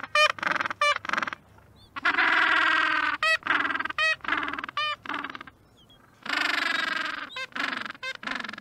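Bird calls with a honking, goose-like character: a drawn-out pitched call about a second and a half long twice, with a string of short, sharp calls between them.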